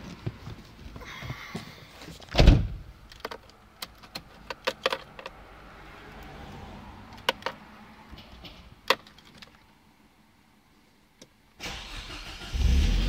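Scattered clicks and knocks, with one loud thump about two and a half seconds in, then a pause of near silence. Near the end a car engine, the Nissan CA18DET turbo four under suspicion of a failing rod bearing, starts and runs.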